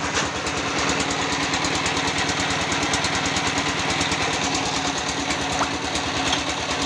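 Batako concrete-block press machine running: its engine chugs steadily with a fast, even beat and a constant hum.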